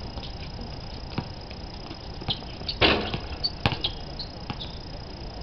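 Sounds of an outdoor pickup basketball game on a concrete court: scattered sharp knocks and thuds from the ball and players' feet. Underneath runs a steady high-pitched hum, and a louder noisy burst comes about three seconds in.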